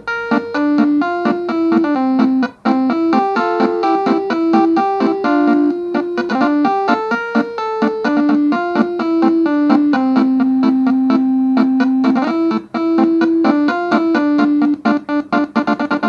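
A fast melody of single notes in an electric-piano-like keyboard tone: MIDI playback of a 12-note telolet basuri horn tune, with one long held note about ten seconds in. It cuts off suddenly at the end.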